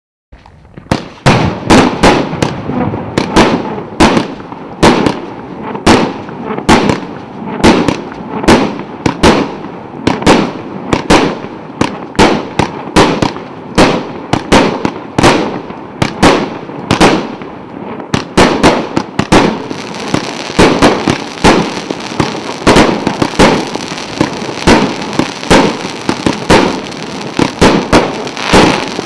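A 100-shot, 1.2-inch firework cake firing shot after shot, one to two sharp reports a second. From about twenty seconds in, a steady crackle from crackling-star effects fills the gaps between shots.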